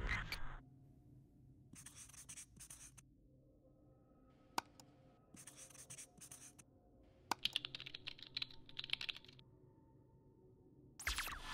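Felt-tip marker writing on a hard surface: three runs of short scratchy strokes, with a single click between the first two. A sweeping whoosh is heard at the start and again about 11 seconds in.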